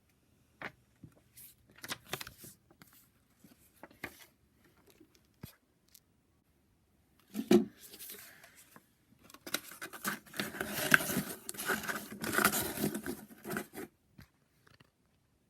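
Handling noise: scattered sharp clicks, a louder knock about seven and a half seconds in, then about four seconds of dense rustling and scraping that stops short.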